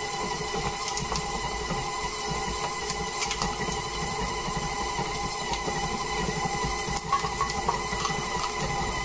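Stand mixer's motor running steadily as its flat beater works thick cookie dough in a stainless steel bowl. A few clicks and knocks as chocolate chips are poured in from a metal cup, with a louder knock about seven seconds in.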